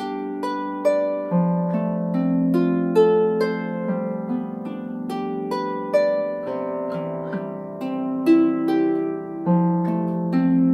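Solo harp playing a calm melody: plucked notes about two a second, each left ringing over lower notes.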